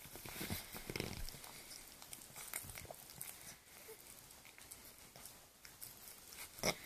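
Toothless Cavalier King Charles Spaniel gumming and licking a dental stick: irregular wet smacks and soft clicks, with one sharper click near the end.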